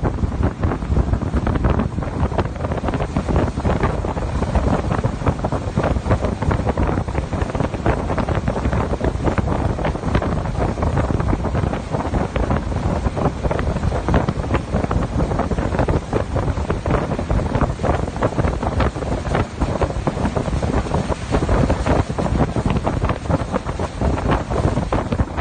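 Heavy wind buffeting the microphone aboard a boat under way, mixed with the rush of water past the hull.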